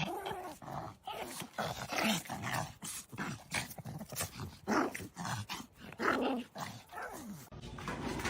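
A dog making a run of short, irregular whining and grumbling sounds, some sliding down in pitch.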